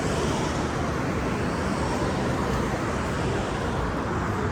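Steady road traffic noise: a continuous rumble and hiss of vehicles passing on the road.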